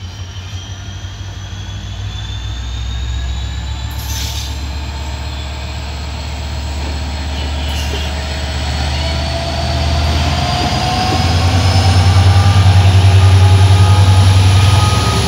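EMD GT42AC diesel-electric locomotive hauling a passenger train approaches and passes close by. Its deep engine drone grows steadily louder and peaks as the locomotive goes past near the end. A thin, high wheel squeal rises slowly in pitch over it.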